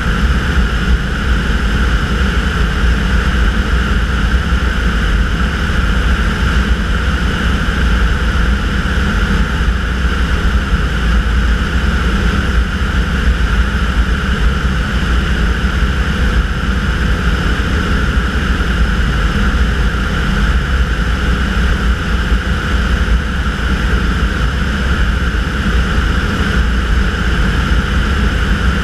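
A Tanarg microlight trike's engine and pusher propeller running steadily in cruise flight: a constant, loud drone with no change in pitch.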